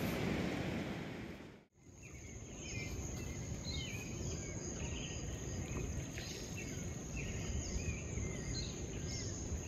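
Steady rushing noise of the beach that fades out about 1.7 seconds in. Then dawn riverside ambience: a continuous high insect trill with small birds chirping in short repeated calls, over a low rushing water background.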